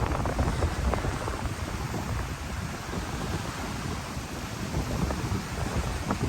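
Wind buffeting the microphone: an uneven low rumble and rush that eases a little in the middle and picks up again near the end.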